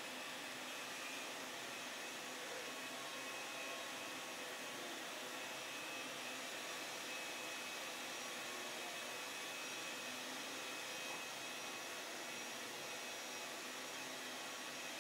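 Handheld power polisher with a foam pad running steadily as it buffs car paintwork: a constant hiss with a faint whine.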